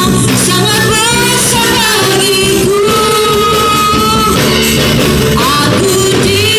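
A praise song sung over a full band: a voice holding long, gliding notes over a steady bass line and drums.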